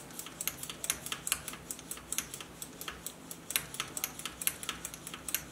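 Balance slide control of a Marantz 2226 receiver being worked back and forth by hand to spread freshly applied lubricant, giving a quick, irregular run of light clicks and ticks.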